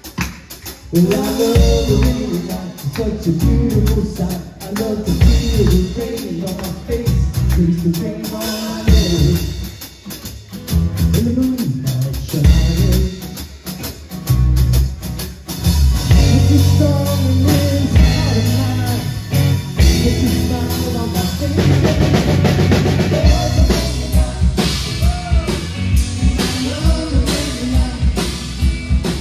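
Live rock band playing an instrumental passage, with a full drum kit keeping the beat under acoustic and electric guitars and keyboard.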